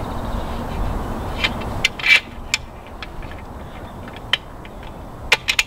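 Several short sharp clicks and knocks of hardware being handled as the ammo tray bracket is fitted onto the shooting chair's rifle support arm, over a steady low rumble that drops away after about two seconds.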